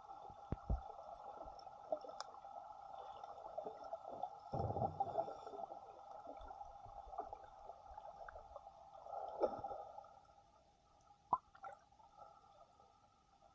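Water gurgling and bubbling at the camera over a steady hum, with scattered short clicks. The gurgling swells twice, about four and a half and nine and a half seconds in.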